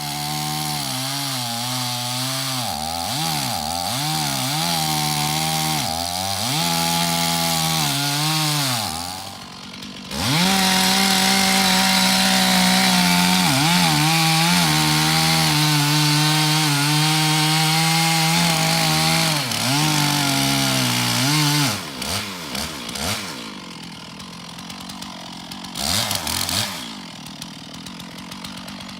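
Two-stroke chainsaw revving up and down, then held at steady full throttle for about ten seconds as it cuts into wood. It drops off about two-thirds of the way through, with one short rev near the end.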